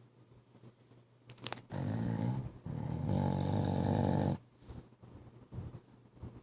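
A sleeping pit bull snoring: one long, loud snore that starts about two seconds in and lasts nearly three seconds, with a short dip partway through. A faint click comes just before it.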